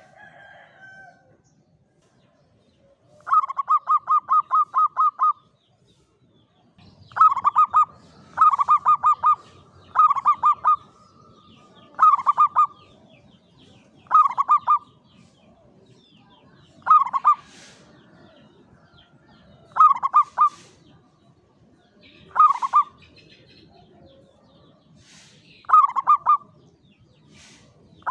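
Zebra dove (Javanese perkutut) cooing: a quick run of about ten staccato notes, then short clusters of a few rapid coos repeated every two to three seconds.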